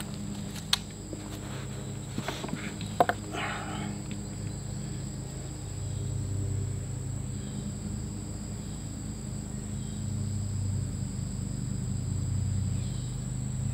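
Steady high-pitched insect drone with a low steady hum beneath it. A few sharp clicks and a short rustle come in the first three seconds or so, as the flintlock is handled and brought up to aim.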